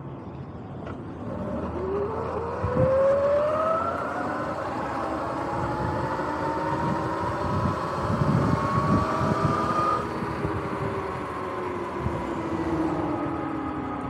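Sur-Ron X electric dirt bike's motor and primary belt drive whining, the whine rising steadily in pitch as the bike speeds up, then falling as it eases off near the end. Low rumbling comes in around the middle.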